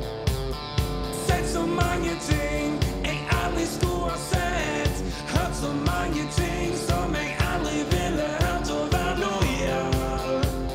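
Rock music with a steady drum beat and a voice singing over it.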